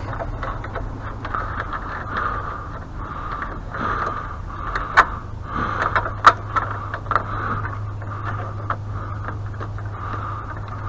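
Hand tools working a stubborn, tight bolt loose on a pressure washer: repeated metal scraping with a few sharp metallic clicks, the loudest two about five and six seconds in, over a steady low hum.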